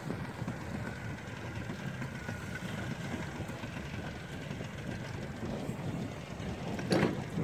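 Outboard motor of a small inflatable boat running steadily, with wind on the microphone. A short thump near the end.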